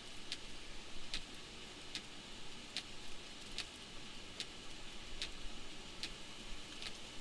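Sharp, regular clicking inside a moving car, about one click every 0.8 seconds, over a steady hiss of road and rain noise.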